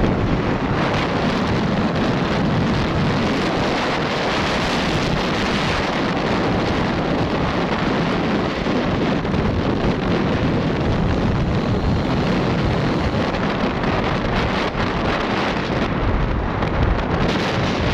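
Wind buffeting the microphone on a moving open vehicle, over a steady rumble of engine and road noise.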